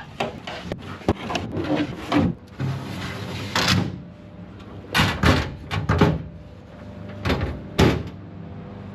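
Drawers of a rolling machinist's tool chest sliding open and shut, with repeated knocks and clunks.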